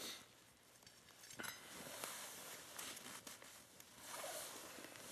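Faint rustling with a scatter of light clicks and taps, from winter clothing and gear being handled.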